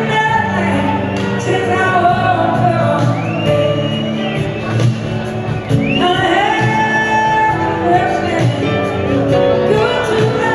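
Live band music with a woman singing lead over electric guitar, in a large hall's reverberation.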